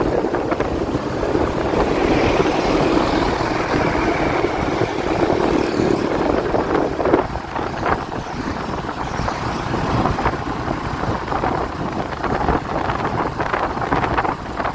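Steady noise of a vehicle moving through busy road traffic, with wind buffeting the microphone.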